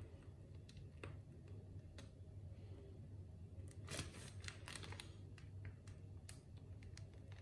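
Faint crinkling clicks from a disposable plastic piping bag being squeezed and handled while meringue is piped onto parchment paper, with a denser burst of crinkles about four seconds in as the bag is lifted and moved; a low steady hum underneath.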